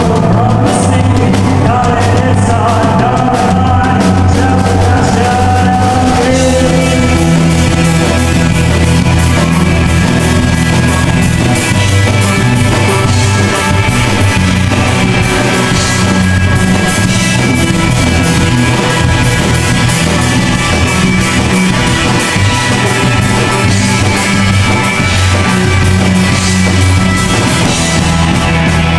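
Live rock band playing loudly: a male singer's voice over electric guitar and drums, giving way about six seconds in to a dense instrumental section.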